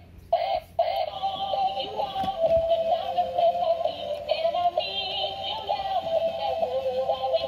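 Battery-powered dancing duck toy playing its electronic song through its built-in speaker: two short notes, then a continuous tune from just under a second in.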